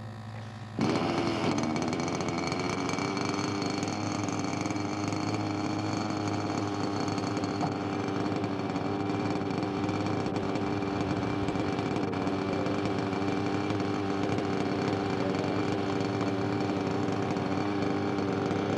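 A small two-stroke model-aircraft glow engine starting up abruptly about a second in, rising briefly in pitch, then running steadily at high revs with a buzzing drone.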